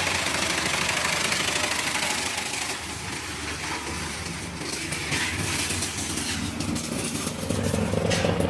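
Large hammer-type bamboo crusher running under power, a steady machine noise, with a run of sharp clicks and knocks through the second half and the level rising again near the end.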